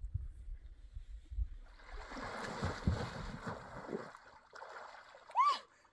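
Water splashing and sloshing for about two seconds in the middle, after low rumbling noise. Near the end comes a brief rising-then-falling voice-like sound.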